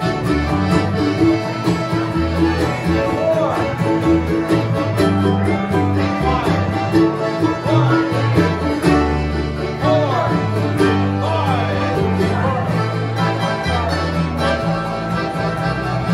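Live bluegrass band playing an instrumental break: banjo, acoustic guitar, mandolin and accordion over an upright bass keeping a steady bass line, with quick plucked notes throughout.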